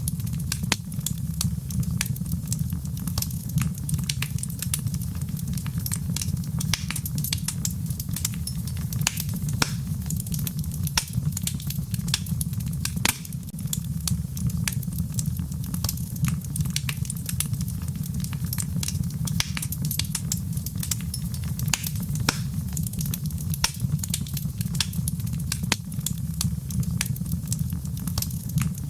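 Wood fire crackling in a fireplace: frequent sharp, irregular pops and snaps over a steady low rumble.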